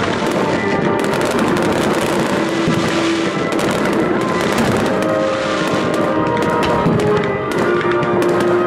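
A dense, continuous barrage of aerial firework shells bursting and crackling, with music playing underneath as held tones.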